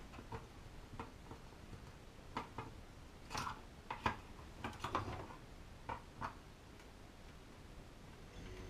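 Scattered light clicks and taps from handling parts and wiring. Near the end, the Atlant refrigerator's compressor starts and runs with a steady low hum.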